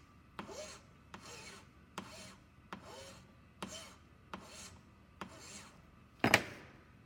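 Hand file rasping across the end of a silver ring blank in slow, regular strokes, each starting with a click, roughly one stroke a second; the end is being filed flat and square so the two ends will meet without a gap for soldering. Near the end comes a single sharp knock with a brief ring, louder than the filing.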